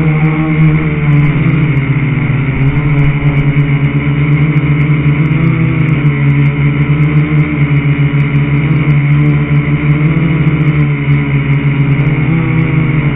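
Quadcopter's electric motors and propellers buzzing steadily, heard from the camera on the craft itself, the pitch wavering a little every few seconds as the throttle changes.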